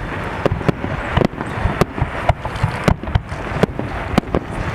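Fireworks salute going off: a rapid, irregular run of sharp bangs, a few each second, over a steady crackling haze.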